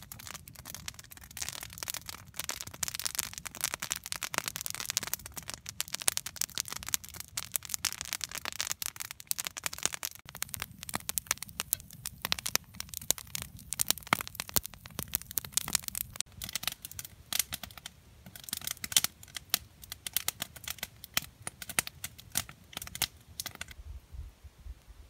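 Wood campfire crackling, with many sharp, irregular snaps and pops.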